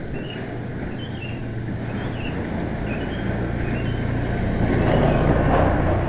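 A motorcycle approaching and passing close by, its engine growing louder to a peak about five seconds in. A bird chirps over and over, short calls less than a second apart.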